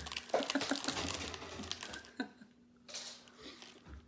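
Crinkling and clicking of a plastic Gushers fruit-snack pouch being handled, busiest in the first two seconds, then a few softer rustles.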